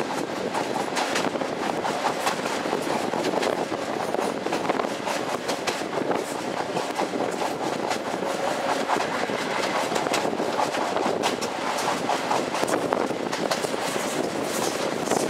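Passenger train running along the track, heard from an open carriage window: a steady rumble of wheels on rail with irregular sharp clacks over the rail joints.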